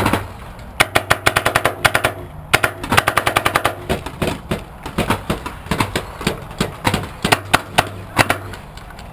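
Paintball markers firing rapid strings of sharp pops, more than one gun going at once, with a short lull about two seconds in.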